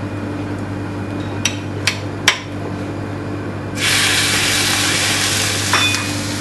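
Beef onglet searing in a smoking-hot pan: a loud sizzle starts suddenly about four seconds in and holds steady. Before it come a few sharp clicks, over a steady low hum.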